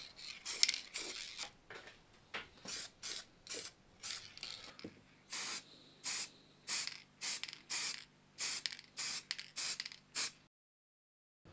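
Aerosol spray-paint can fired in many short bursts of hiss, about two a second, stopping shortly before the end.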